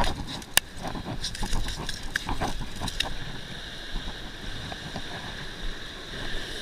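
Steady wash of ocean surf, with a few sharp clicks, the loudest about half a second in, as the hooks of a needlefish plug are worked free of a striped bass's mouth.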